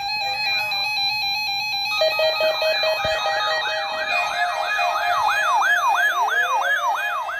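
Electronic alert signal from a NOAA Weather Radio required weekly test. Steady pulsing electronic tones change about two seconds in to a siren-like tone that sweeps up and down about two to three times a second over a steady tone.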